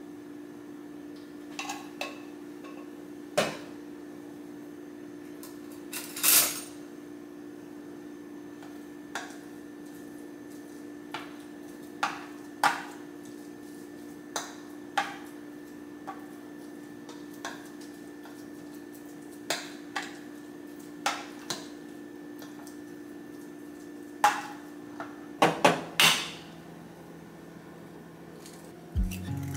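A metal spoon clinking and scraping against a plastic food container as canned sardines are mashed and seasoned: separate sharp clicks, irregularly spaced, with a quick flurry of knocks near the end. A steady low hum runs beneath.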